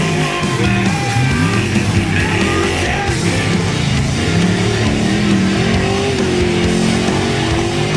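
Loud rock music with guitar. Beneath it, the engine of a formula offroad buggy revs hard as it climbs the slope.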